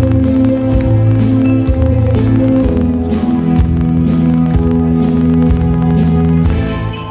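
Korean trot music in an instrumental passage without singing: a steady beat of about two strikes a second over held low notes, dropping in level near the end.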